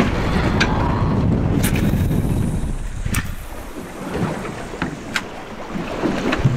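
Wind buffeting the microphone over the wash of a choppy sea around a boat, with a few sharp clicks. The wind noise eases about halfway through.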